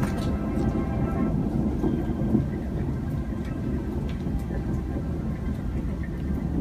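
Steady low rumble of rolling thunder during a downpour, with faint patters of rain. A pitched tone fades out in the first second or so.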